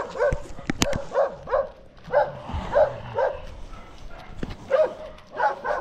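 Dogs barking repeatedly, about a dozen short barks in quick runs of two or three. There is a sharp click just under a second in.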